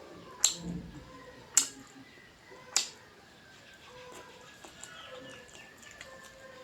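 Eating sounds: three sharp clicks about a second apart, with faint chirping calls in the background.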